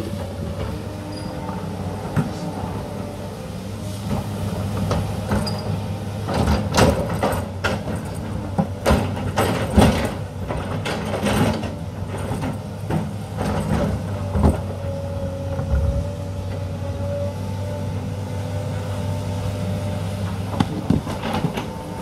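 Sany crawler excavator's diesel engine running steadily while its bucket digs into the hillside soil and rock. A run of sharp knocks and clattering stones comes in the middle, and a thin steady whine comes in the later part.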